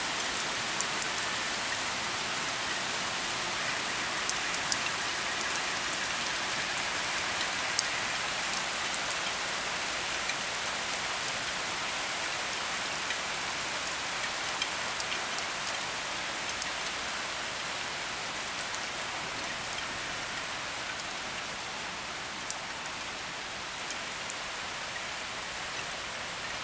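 Heavy rain pouring steadily, with scattered sharp ticks standing out from the hiss.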